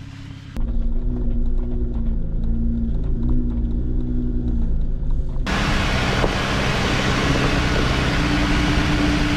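Jeep engine running as it drives slowly along an off-road trail, a steady low hum. About halfway through, a loud steady hiss joins it suddenly.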